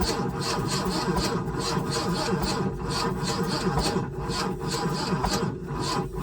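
Boat engine being cranked over by its starter motor in an even, rhythmic chug without catching or firing.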